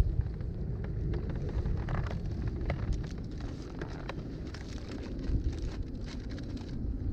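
Wind rumbling on the microphone, with water lapping and splashing in small irregular slaps against the plastic kayak hull.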